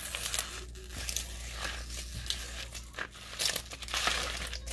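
Red adhesive vinyl sticker material being peeled off its backing and crumpled in the hand, a run of irregular crinkling and tearing crackles that is busiest near the end.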